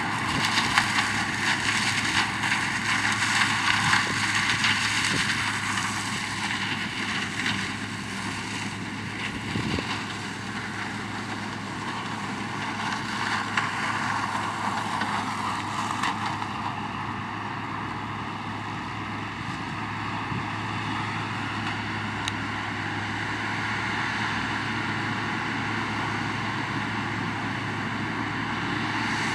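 Sugarcane harvester's diesel engine running steadily under load as the machine cuts through standing cane. The sound is a continuous drone, a little louder over the first few seconds.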